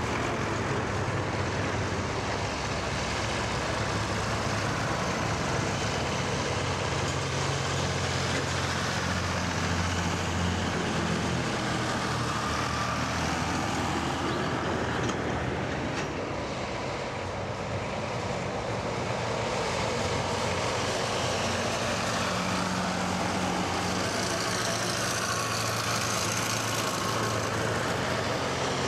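Vintage farm tractors driving past in a procession, their engines running steadily; the engine note dips a little about halfway through and comes back strong as the next tractors draw level.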